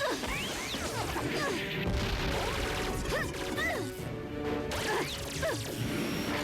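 Cartoon action sound effects, crashes and whacks in quick succession, over background music.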